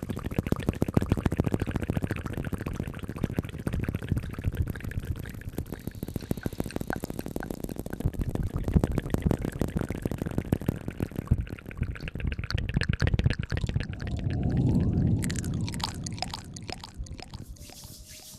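Close-microphone ASMR hair-washing sounds: wet, lathery rubbing and squishing right on the microphone, a dense run of fast fine crackles. It swells louder about fourteen seconds in and thins out near the end.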